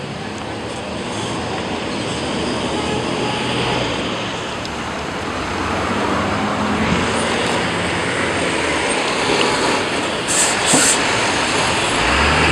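Steady rumble of a moving vehicle, getting louder over the first half, with two short high hisses about ten seconds in.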